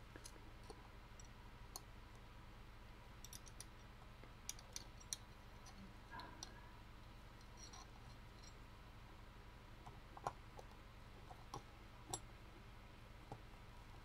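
Faint, irregular clicks and ticks of a hand screwdriver driving a screw down into a mini thermoelectric fridge's heat sink, the sharpest about five and ten seconds in.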